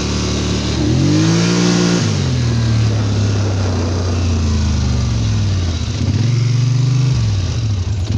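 Polaris Sportsman XP 850 EFI ATV's parallel-twin engine under way, revving up about a second in, easing off, then revving up again near the end before backing off.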